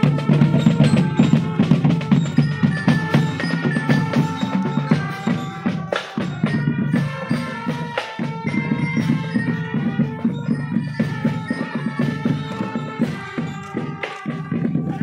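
Marching drum band playing: a steady beat of drums and percussion under a melody of held notes.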